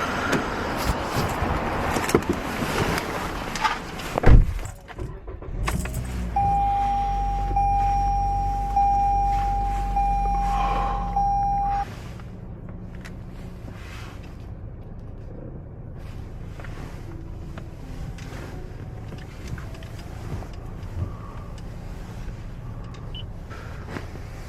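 Car interior sounds from a Toyota Corolla: handling and keys, then a door shutting with a thump about four seconds in. A dashboard warning chime beeps steadily for about five seconds over a low hum, and both cut off together, leaving steady cabin noise.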